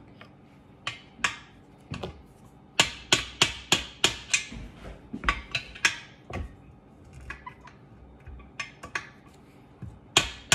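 A screwdriver being struck against the hinge pin of a KitchenAid tilt-head stand mixer: sharp metal-on-metal taps in quick runs of several strikes, driving the pin out so the head can come off.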